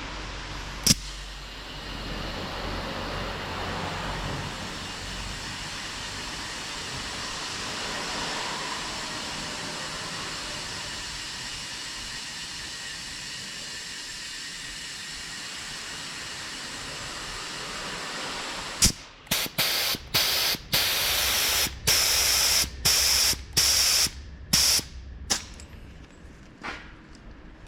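Steady background hiss, then, about two-thirds of the way in, about a dozen short hissing spray bursts in quick succession over roughly six seconds.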